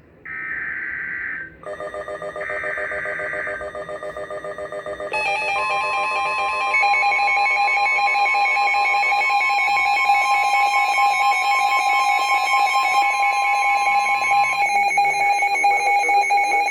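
NOAA Weather Radio alert sequence. Two buzzy digital SAME header bursts, each about a second long, are followed by a weather alert receiver's alarm beeping rapidly. About five seconds in, the steady 1050 Hz warning alarm tone joins and holds until near the end, while the receiver's beeping carries on. Together they announce a new severe thunderstorm warning.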